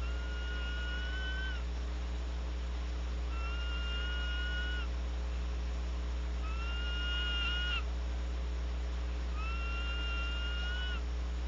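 Female barn owl in a nest box calling: four drawn-out, steady-pitched screeching calls, each about a second and a half long and about three seconds apart, each lifting slightly at its end. A constant low electrical hum runs underneath.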